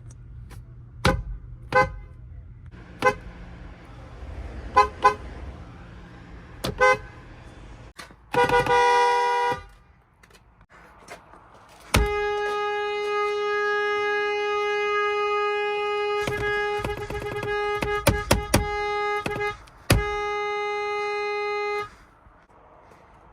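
Nissan/Infiniti car horns honking: several short taps, then a blast of just over a second, then a long steady honk of about seven and a half seconds, followed by another of about two seconds.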